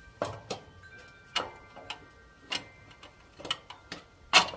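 Irregular sharp clicks and knocks of the air filter cover and housing of a Stanley petrol generator being handled and fitted back on, about eight in all, the loudest a little before the end.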